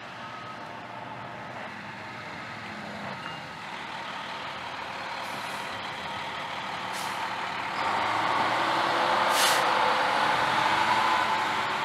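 Diesel engine of a fire engine (a 2014 KME Predator pumper) pulling up, growing louder as it nears. Two short air-brake hisses, about seven and nine and a half seconds in, the second louder.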